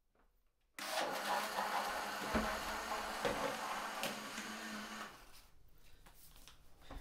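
A noisy electric motor switched on abruptly about a second in, whirring with a steady low hum and a few clicks, then dropping to a lower level about five seconds in.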